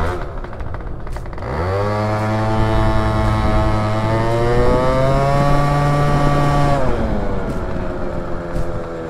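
Malossi-kitted Yamaha Aerox 50 cc two-stroke scooter engine pulling away under throttle. About a second and a half in, the revs shoot up, then hold almost level and creep slowly higher as the automatic transmission takes up the load. Near seven seconds the revs drop away as the throttle closes. The scooter is running a soft torque spring and light clutch springs.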